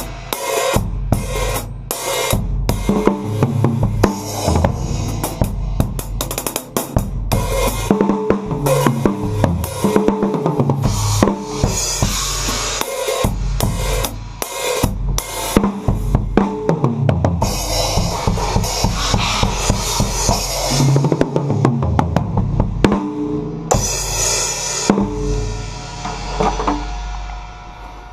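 Acoustic drum kit played unmiked, with bass drum, snare, hi-hat and cymbals in a steady dance groove, picked up only by the camera's own microphone. Near the end the playing stops on a cymbal hit that rings out and fades.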